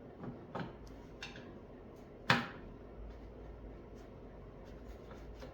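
A few light metallic clicks and one sharp clunk about two seconds in, as a starter motor is wiggled into its bore on the engine case so its gear teeth mesh.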